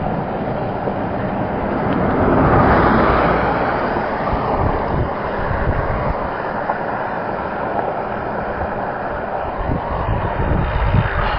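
Wind rushing over the microphone while cycling along a road, a steady noisy rush that swells louder about two to four seconds in, with a few low buffeting thumps near the end.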